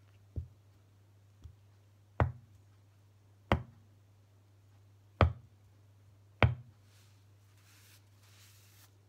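A small ceramic tile knocked down against the cup it rests on: two faint knocks, then four sharp knocks with a dull thud, a second or so apart. A faint steady low hum runs underneath.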